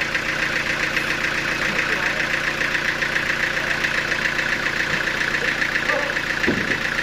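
Sawmill machinery running steadily, a continuous mechanical drone with a fast, even pulse. A brief voice is heard near the end.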